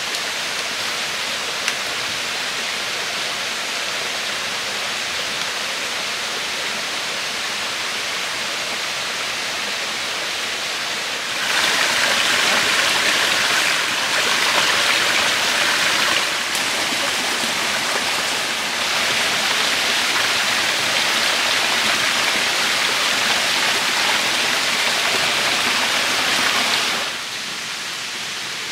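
Steady rushing noise of running water, getting louder about eleven seconds in and dropping back near the end.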